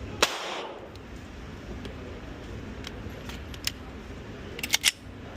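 Metallic clicks from handling a Glock 27 pistol: one sharp click just after the start, a few light ticks in the middle, and a quick run of three or four clicks near the end.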